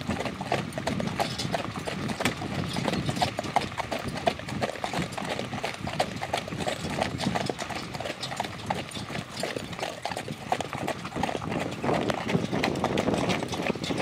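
Hooves of a driven pair of harnessed horses clip-clopping steadily on a sandy woodland track, a continuous run of overlapping hoofbeats.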